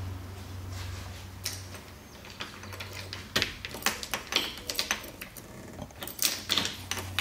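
Irregular clicks and light knocks of a hand working at the switches and wiring in a VW trike's instrument pod, over a low steady hum that fades out for a while in the middle and comes back near the end.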